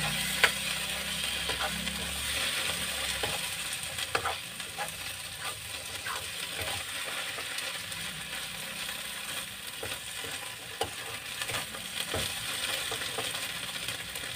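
Sardines with garlic and onion sizzling in a non-stick frying pan, stirred with a metal spatula that scrapes and clicks against the pan now and then.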